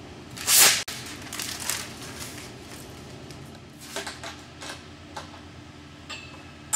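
Hand-handling noises from fastening the windshield's top mounting bracket: a loud short rustle about half a second in, then light crinkles and taps, and a sharp metallic click near the end.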